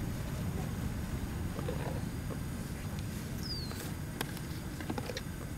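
Steady low rumble of wind on the microphone, with a short high falling chirp about three and a half seconds in and a few light clicks and taps from things being handled on a table near the end.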